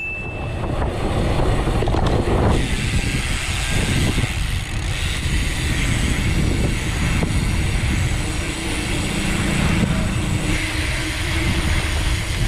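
Wind buffeting the microphone with tyre and road rumble from riding a bicycle: a loud, steady low rumbling noise.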